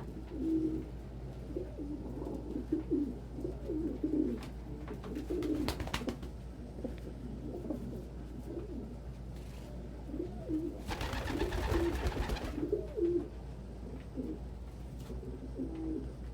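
Domestic pigeons cooing over and over. A few sharp clicks come about six seconds in, and a short rustling burst about eleven seconds in.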